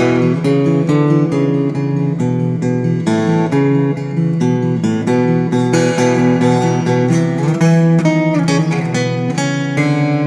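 Acoustic 12-string guitar playing an instrumental passage of picked notes that ring over one another and change several times a second.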